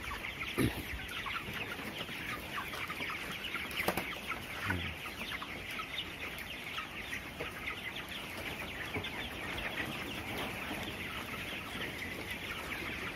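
A house full of 24-day-old broiler chickens clucking and peeping in a steady dense chorus, with a couple of brief knocks in the first few seconds.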